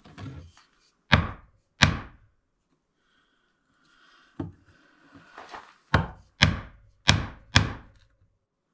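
A chisel being struck into a pine board to chop a stopped groove: about seven sharp knocks, two close together about a second in and five more in quick succession in the second half, with softer scraping between the blows.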